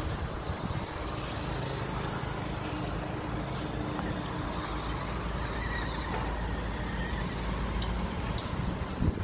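Wind buffeting the microphone outdoors: a steady low rumble.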